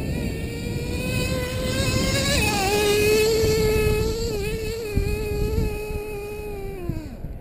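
Small two-stroke engine of a radio-controlled off-road car running hard, a high-pitched buzzing whine over a rough low rush of noise. Its pitch drops a step about two and a half seconds in, holds, then falls away near the end.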